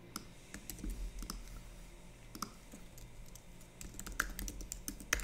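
Computer keyboard keystrokes and clicks, irregular and light, while a file is created and named and code is copied.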